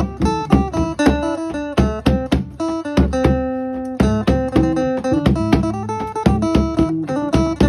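Instrumental klong yao music: a plucked string instrument playing a quick melody over a steady low drum beat of about two strokes a second.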